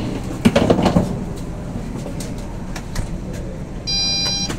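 Steady hum inside a lift car, with a few sharp clicks as the floor button is pressed, then a steady electronic beep of about half a second near the end as a finger presses the door-close button on the Otis control panel.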